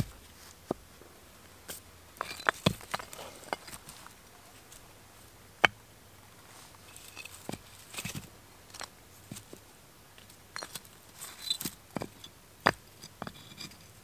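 Flat rocks being set down and stacked by hand on grassy ground: irregular sharp stone-on-stone knocks and clacks, with softer scrapes between.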